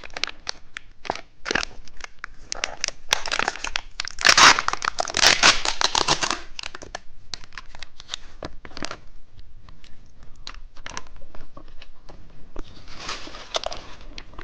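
Plastic candy wrapper crinkling and tearing under handling, a run of sharp crackles with a longer tearing rip about four seconds in and another crinkle near the end.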